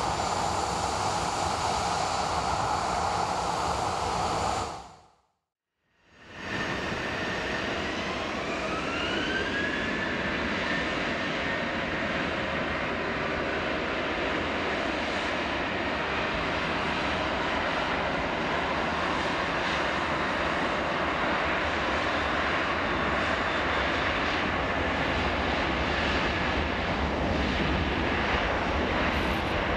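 An ATR 72-600 turboprop's engines running at takeoff power, fading out to a brief silence about five seconds in. Then a Boeing 737-800's CFM56 jet engines running on the runway, with a whine that rises from about eight to ten seconds in and then holds steady over the engine noise.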